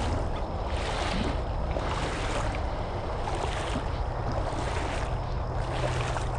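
Legs in waders pushing through shallow creek water, a watery swish with each stride about once a second, over a low rumble of wind on the microphone.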